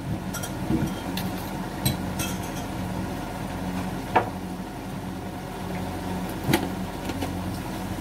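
A steady low machine-like hum under light crackling from chicken and vegetables frying in a pan, with three sharp taps about two, four and six and a half seconds in.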